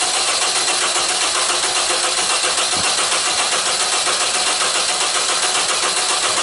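Honda CR-V's K20 four-cylinder engine being cranked over by the starter, steady and evenly pulsing, without catching. It will not start because the cam-to-crank timing is off: the mechanic suspects a stretched timing chain that has jumped.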